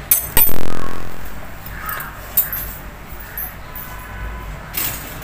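Kitchen utensils handled on a counter: two light clicks, then a loud metallic clank about half a second in that rings out and fades over about a second and a half, followed by scattered lighter knocks.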